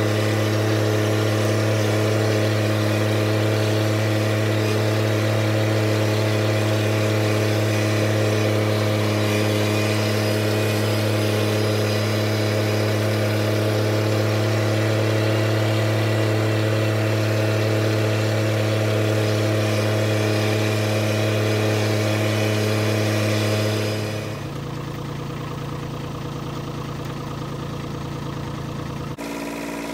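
Kubota B2601 compact tractor's three-cylinder diesel engine running steadily at constant throttle as the tractor drives along, heard from the operator's seat. About 24 seconds in the engine sound drops to a quieter, lower level, like an idle.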